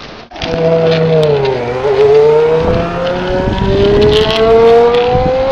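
An engine revving: its pitch drops for about a second and a half, then climbs steadily as it accelerates.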